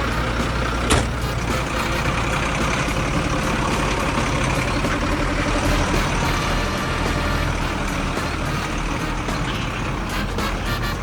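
Heavy vehicle engine running steadily with a dense rumble, and one sharp knock about a second in.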